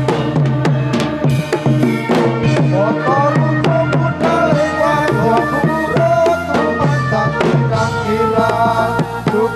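Instrumental passage of live band music: hand drums playing a quick, busy rhythm under a melody line and a steady bass.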